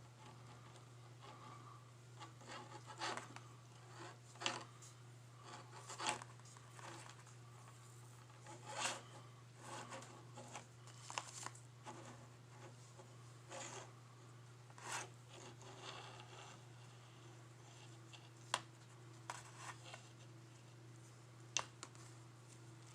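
Quiet, scattered rubbing and scraping strokes as grease is worked by hand along a motorcycle's wound speedometer inner cable, the cable twisted as it is lubed. A steady low hum runs underneath.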